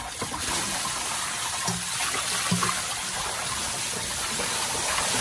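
Water pouring steadily from a jug into the carburetor and over the engine of a 1979 Ford F-250's 351M V8, splashing and sizzling on the metal, which is still very hot after the engine was blown.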